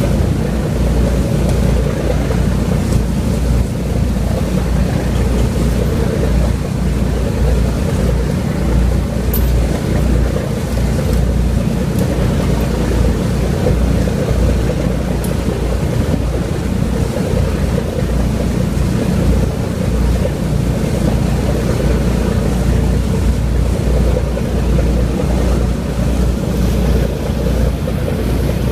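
A docked passenger ferry's diesel engines idling, a steady low rumble, with wind buffeting the microphone.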